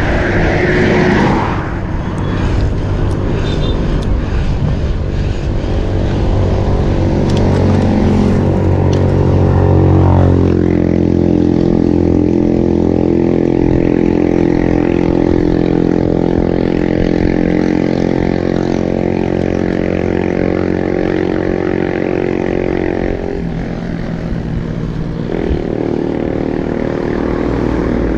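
A motor vehicle's engine running close by with a steady drone. Its pitch slides down about ten seconds in, holds level, then shifts again a couple of seconds before the end.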